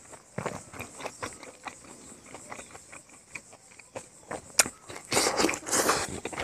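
Close-up eating sounds: wet chewing and lip smacks as a mouthful of rice and pork is eaten by hand, with one sharp click about four and a half seconds in and two longer, louder stretches of chewing near the end.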